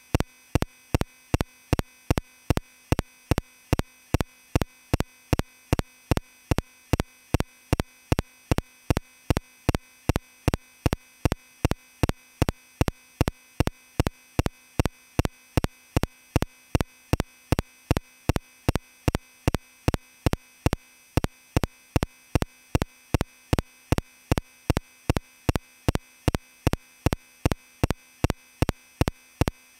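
Steady electronic ticking, sharp evenly spaced ticks about three a second, with a faint steady electronic tone underneath.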